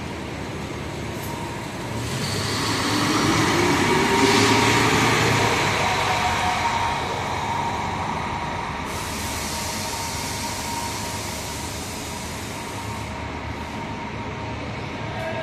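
Highway coach bus pulling away and driving off, its engine rising in pitch as it accelerates, loudest about four seconds in and then fading as it moves away.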